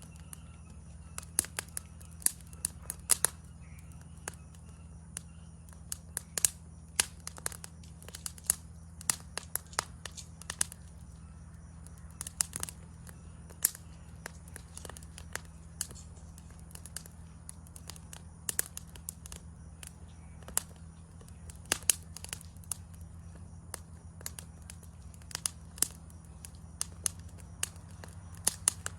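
Wood campfire crackling, with irregular sharp pops of varying loudness, several a second, over a steady low hum.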